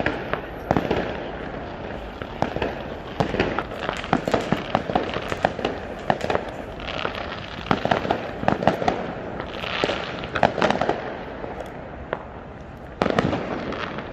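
Fireworks going off: a dense, continuous run of sharp bangs and crackles, one after another, with a louder burst near the end.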